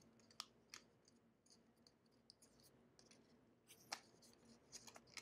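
Near silence, broken by a few faint clicks and crinkles of stiff paper being folded and handled, the clearest a little under four seconds in.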